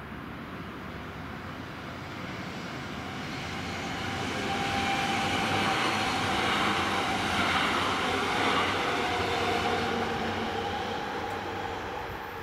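A České dráhy RegioPanter electric multiple unit passing over the level crossing. The noise of the train builds over the first few seconds, is loudest in the middle and fades away near the end.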